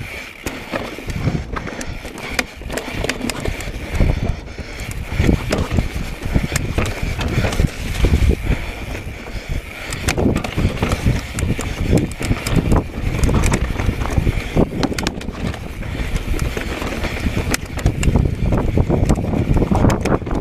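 Mountain bike rolling over a rocky trail: tyres running on rock and grit, with frequent knocks and rattles from the bike, over a steady wind rumble on the microphone.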